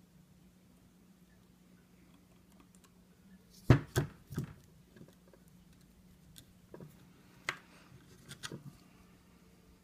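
A few light clicks and knocks of tools being handled against the workbench while soldering: three close together about four seconds in, a few more near the end, over a faint steady hum.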